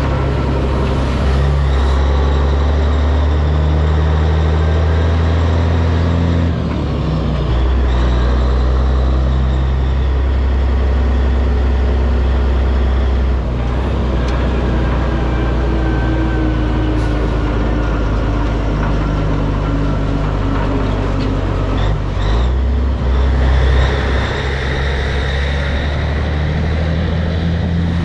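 Heavy diesel truck engine running at low speed, its note shifting a few times as it pulls through the lot.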